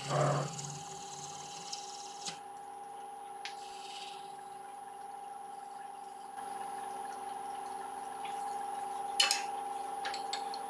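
Wood lathe running with a steady motor hum and whine, broken by a few brief clicks and short rasping noises.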